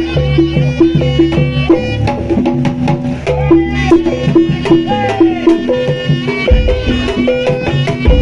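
Live jaranan music for a kuda lumping dance. A traditional East Javanese ensemble of drums and tuned gongs plays a repeating rhythmic pattern, with a melody line over it.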